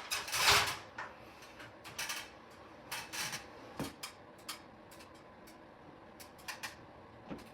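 Handling noise: irregular clicks and knocks of things being moved and handled, with a louder clatter about half a second in and then sparse small ticks.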